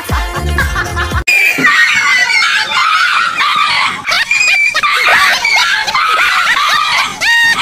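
A dog yelping and barking in frantic high-pitched cries, many in quick succession, after a short stretch of music that cuts off about a second in.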